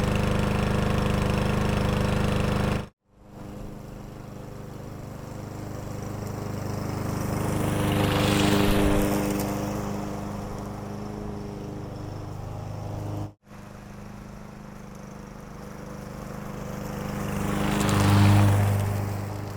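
Lawn mower engine running steadily close by. After an abrupt cut it passes by twice, each time growing louder to a peak and then fading away.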